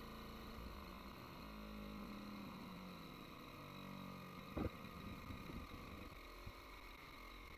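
Faint steady hum, with a low drone sliding down in pitch in the first few seconds and a single sharp knock about four and a half seconds in.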